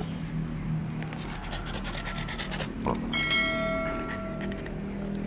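A click followed by a bell chime, the sound effect of a subscribe-button animation, starting about three seconds in and ringing out over about a second and a half. Beagle puppies panting close by underneath.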